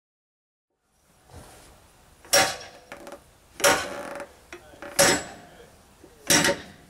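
A long steel bar is driven down hard against a large tractor tire's bead at the steel rim, four sharp ringing strikes about 1.3 s apart, beginning after a second of silence. These are the blows that break the old tire's bead loose from the rim.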